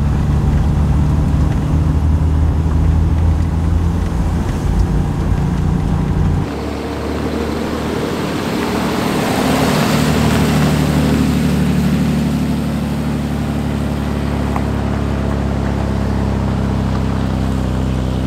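Vehicle engine droning steadily with road noise while driving. The drone changes abruptly about six seconds in, to a slightly different steady pitch.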